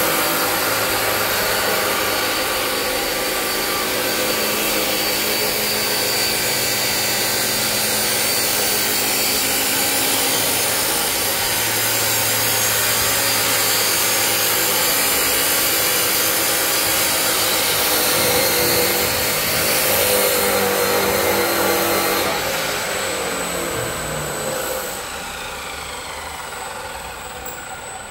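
Electric motor of an industrial stand stirrer running steadily, turning its stainless shaft and impeller discs. The sound gets quieter over the last few seconds.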